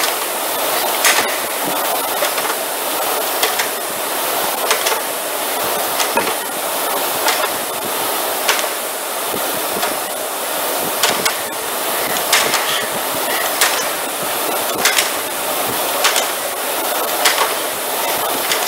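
Indoor air rowing machine worked at a fast pace: the fan flywheel gives a steady whooshing rush, with a sharp clack repeating about every 1.2 seconds in time with the strokes.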